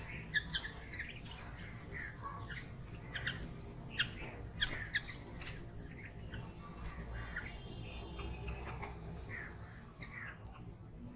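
Red-vented bulbuls and house sparrows calling in short, sharp chirps, several a second in the first half and thinning out toward the end, over a low steady background rumble.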